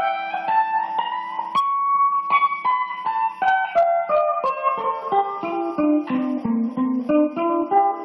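Guitar played solo: single plucked notes, each ringing on, in a melody that steps down in pitch through the middle and climbs back up near the end.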